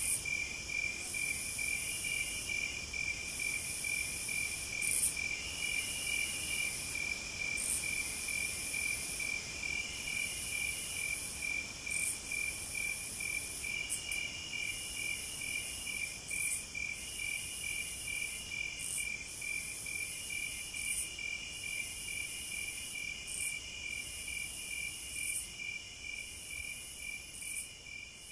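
Night insects, crickets or bush crickets, calling steadily: a fast, even pulsing trill with a higher buzzing song that comes in phrases of about a second, separated by short gaps.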